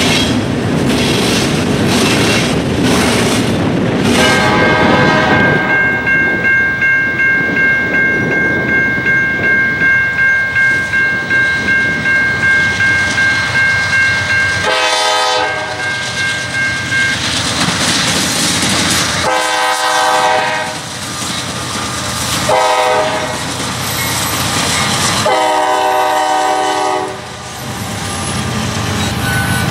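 Freight cars rolling past with wheels clicking over the rail joints, then a steady ringing tone that pulses about twice a second. A CSX GE C40-8W diesel locomotive's air horn then sounds the grade-crossing signal: long, long, short, long.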